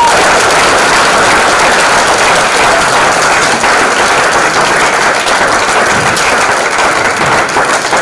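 Church congregation applauding the end of the sermon: loud, dense, steady clapping that eases slightly near the end.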